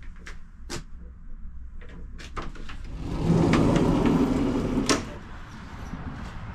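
Several light clicks, then a passenger door of a Škoda 03T6 Anitra tram working for about two seconds and shutting with a sharp clack, over the tram's steady low rumble.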